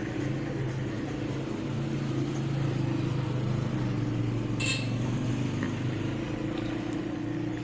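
Washing machine motor running on a bench test with a steady electric hum, and a short click about halfway through.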